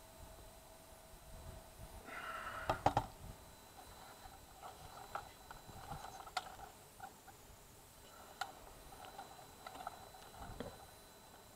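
Handling noise as a camera and a drone ground-station controller are moved about: scattered small clicks and rustles, with a louder rustle and two sharp clicks about three seconds in.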